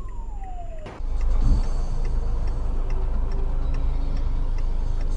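Steady low engine and road rumble inside a car, with a light ticking about two times a second. In the first second a falling tone slides down and cuts off.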